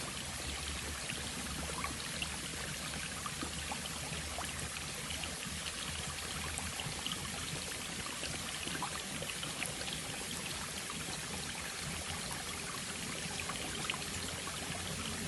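Small forest stream running steadily over stones, a constant rushing and trickling with frequent little splashes.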